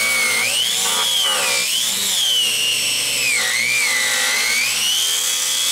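Angle grinder's cut-off disc cutting through a metal baseball bat: a loud, steady high whine that wavers up and down in pitch as the disc works through the metal.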